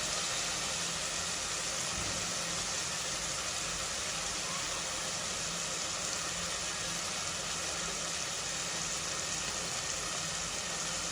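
Curry base of onions and tomatoes with tamarind water in the pan, sizzling and simmering steadily on the stove as an even hiss.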